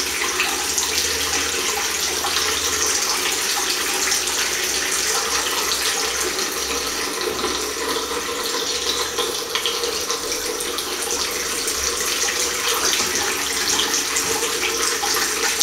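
Water running steadily from a chrome mixer tap into a ceramic washbasin, the stream splashing down by the drain.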